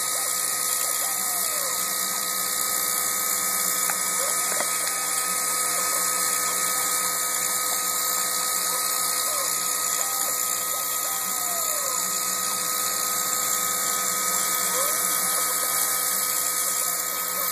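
Milling machine running as it cuts a channel into a workpiece: a steady high whine over a constant hiss.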